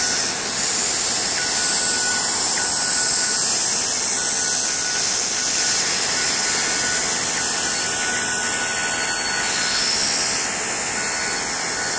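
Loud, steady rushing hiss like heavy static, with a faint thin tone running through it: eerie sound design from the creepy video playing on the laptop.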